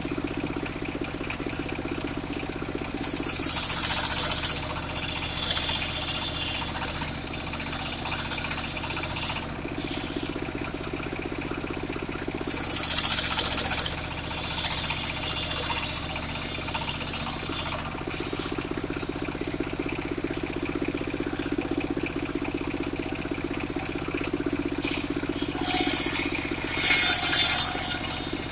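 Engine-driven circular-saw sawmill running steadily, its blade ripping through jackfruit wood in loud high-pitched bursts about three seconds in, about twelve seconds in and near the end, with shorter cuts between.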